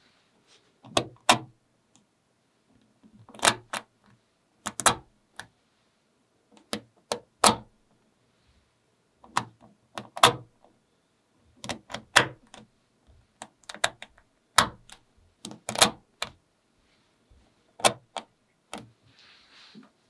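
Small magnetic balls clicking as a fingertip presses the domes of a magnet-ball pop-it toy in, one after another: sharp, irregular clicks, often in pairs, every second or so.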